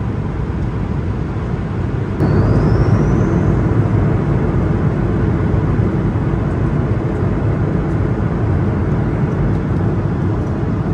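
Steady cabin noise of an Airbus A220-300 in flight, from its Pratt & Whitney PW1500G geared turbofan engines and the air rushing past the fuselage. It gets louder suddenly about two seconds in, with a short rising whistle.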